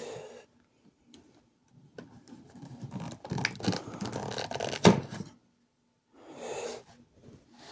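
Scope packaging being handled and opened: scratching and scraping from about two seconds in, ending in a sharp click, then a short rustle.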